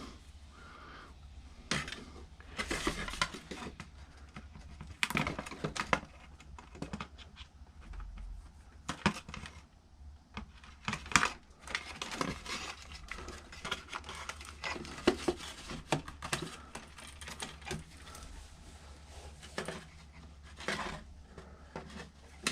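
Irregular clicks, snips and light knocks of wires being cut with hand cutters and parts of a karaoke machine being handled, with rustling between them.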